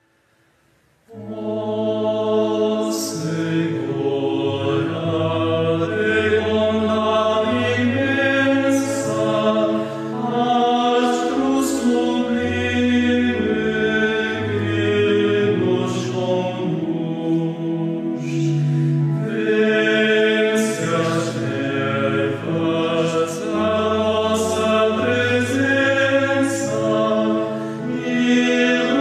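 Male choir singing a hymn in Portuguese in several parts, coming in about a second in after a brief silence.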